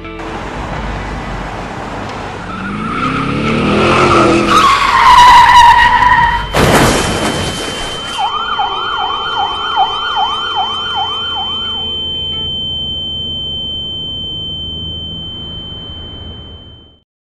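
Dramatic film sound effects: a rising swell of sliding tones builds to a heavy hit about six and a half seconds in. A long, high, steady ringing tone and a run of quick siren-like sweeps, about two a second, follow, and everything fades out just before the end.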